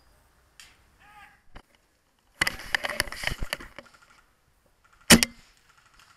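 Airsoft rifle fired from the scope-camera position: a sharp, loud double crack about five seconds in. Before it comes a dense rattling stretch of rapid clicks and rustle lasting about a second, with a few faint clicks earlier.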